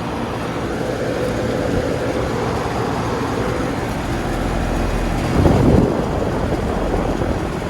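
Trane XB13 central air conditioner condensing units running: a steady hum of fans and compressors, with a brief louder rush about five and a half seconds in.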